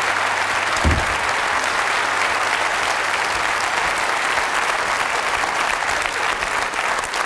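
Studio audience applauding steadily, a dense even clapping. A single low thump sounds about a second in.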